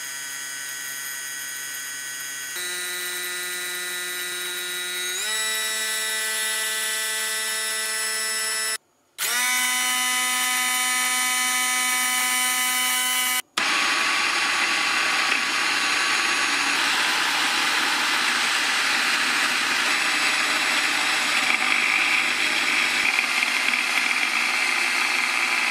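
Silvercrest SSMS 600 W electric hand blender motor running with a steady whine that steps up in pitch as it is switched up through its speed settings. After a brief stop it runs at a higher pitch. Then, mounted on its chopper bowl, it runs as a louder, noisier whirr.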